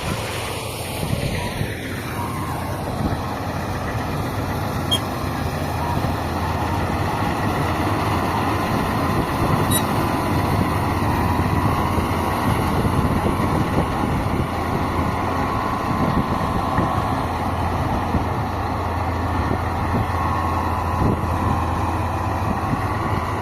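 Kubota MU 5502 4WD tractor's diesel engine running steadily with a harvester in wheat, with a faint steady whine over the engine noise.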